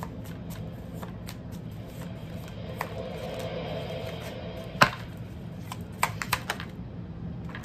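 Tarot cards being handled and laid down: scattered light taps and clicks, with one sharper snap about five seconds in and a quick run of taps a second later.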